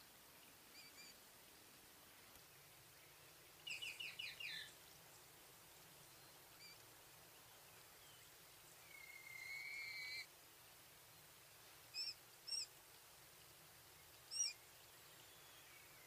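Coturnix quail chick peeping faintly and high-pitched: a quick run of about five falling peeps, then one longer drawn-out peep lasting over a second, then three short peeps near the end.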